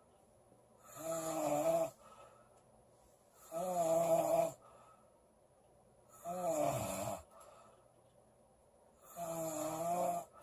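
A woman snoring loudly and regularly: four snores, each lasting about a second, roughly every two and a half to three seconds, with quiet in-between. Each snore has a clear pitch, and the third falls in pitch as it ends.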